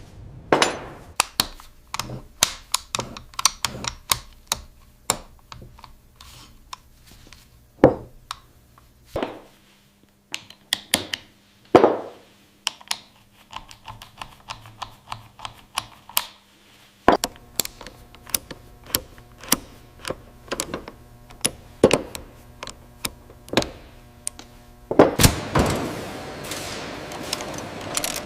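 Irregular sharp clicks, taps and knocks of metal parts and hand tools being handled at a workbench, over a faint steady machine hum. The clatter grows denser near the end.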